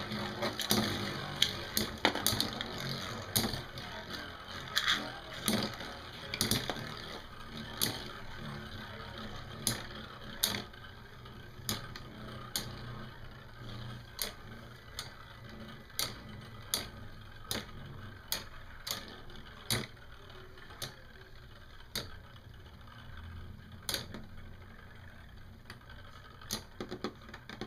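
Two metal Beyblade tops, Wolf and the left-spinning L-Drago, spinning in a plastic stadium and repeatedly clacking against each other, with sharp irregular hits that come thick at first and grow sparser as the tops slow down.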